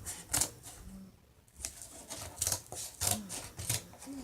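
Cardboard and wrapping material being folded and shaped by hand: a run of short, crisp crinkling and scraping sounds, with a brief lull about a second in.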